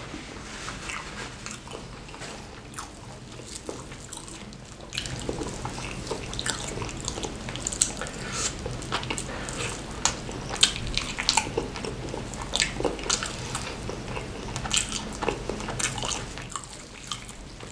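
Close-up chewing and biting of fried chicken smothered in chili sambal, full of short sharp mouth clicks and smacks that grow louder and denser about five seconds in.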